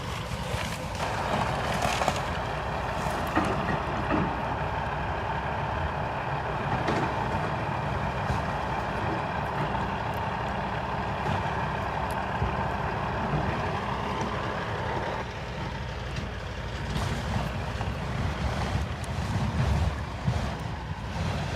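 Heavy construction machinery running steadily, with occasional sharp knocks and clatters.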